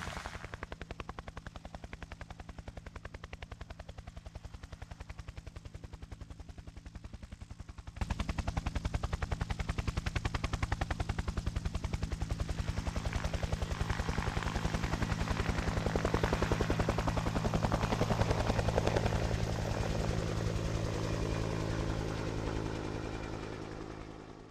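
UH-1 Huey helicopter in flight, its two-bladed main rotor beating in a fast, steady pulse over a low, steady engine hum. The sound gets louder about a third of the way in and fades out at the end.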